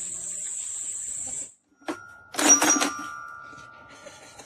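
A steady high hiss cuts off about a second and a half in. After a knock, a bell-like ding rings out about halfway through and fades slowly.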